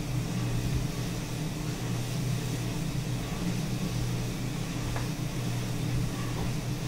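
Steady low hum of a running Siemens ultrasound scanner and its cooling fans, with two faint clicks, one about five seconds in and one at the end.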